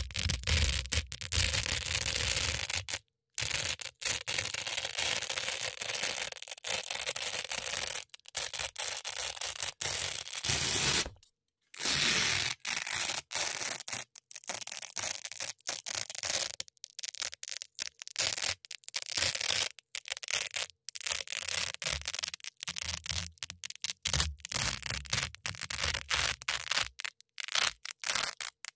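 Velcro hook-and-loop strips crunching as they are scratched and ripped close to the microphone, in many short crackly strokes with brief pauses between them.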